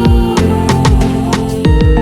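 Background music with a steady beat: deep kick drums that drop in pitch under sustained instrument tones.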